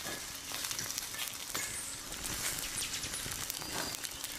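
Forest ambience: a steady hiss with many small, irregular clicks and crackles scattered through it.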